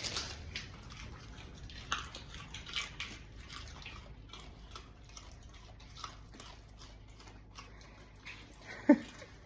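Dogs crunching and chewing raw carrots: irregular crisp cracks and clicks. Near the end there is one short squeaky pitched sound.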